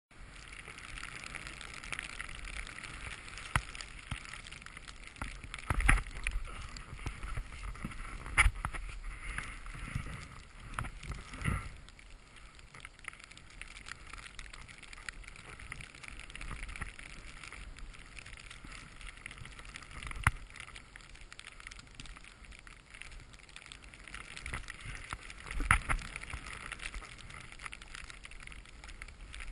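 Sliding downhill through deep powder snow: a steady hiss of snow under the boards. It is broken by several sharp thumps, the loudest about six, eight and a half and twenty-six seconds in.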